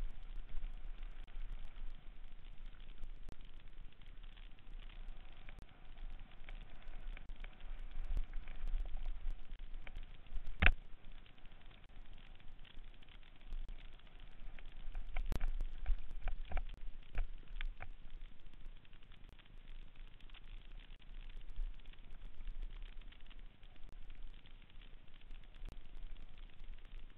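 Mountain bike ridden fast down a dirt singletrack, heard from the bike: a steady rattle and crackle of tyres and frame over the trail with a low rumble. Sharp knocks come as the bike jolts over bumps, the loudest about ten seconds in and a cluster of several between about fifteen and eighteen seconds.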